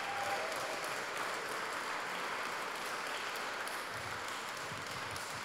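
A roomful of guests applauding, steady and easing off slightly toward the end.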